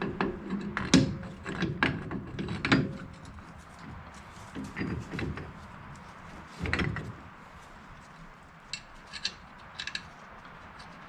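Metal clanks and clicks of a heavy-duty hub puller being fitted onto a Willys Jeep's rear hub: a quick run of knocks in the first few seconds, then a few scattered knocks and light ticks.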